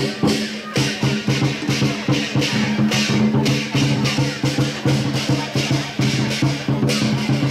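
Lion dance percussion music: drums and clashing cymbals beaten at a quick, steady beat over a sustained low ringing tone.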